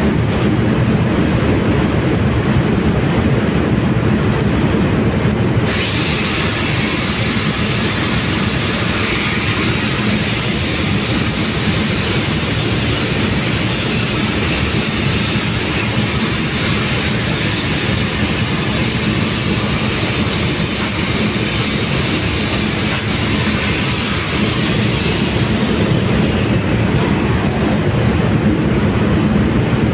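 Loud, steady ship engine-room machinery noise: a deep rumble with a hum. About six seconds in a strong hiss starts abruptly on top and fades out a few seconds before the end.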